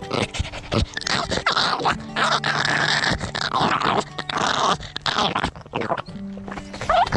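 Dog panting and making breathy, nearly voiceless whines right against the microphone, its fur rubbing over it; the dog's voice is gone from crying out, so little comes out but breath.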